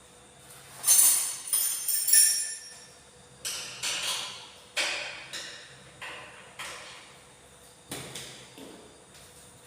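Irregular metallic clinks and knocks with a brief ring, like tools and steel parts striking during air compressor restoration work. The loudest cluster comes about a second in.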